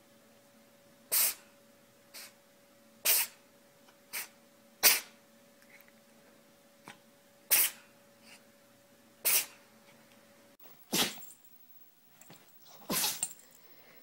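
Domestic cat sneezing repeatedly: five sharp sneezes a second or two apart, with a couple of fainter ones in between. Near the end a small dog sneezes twice.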